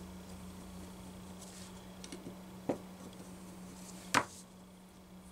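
Screwdriver and small metal carburetor parts handled on a cardboard-covered bench while a Walbro HDC chainsaw carburetor is taken apart: a few faint ticks, a sharp click about halfway through, and a louder click about four seconds in. A steady low hum runs underneath.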